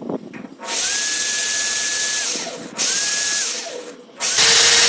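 Drill-driver running in three bursts, boring into the steel gear rack of a sliding gate with a bit not meant for metal. The first two bursts whine up in pitch and wind down as the trigger is let go. The third starts near the end at a lower, steady pitch.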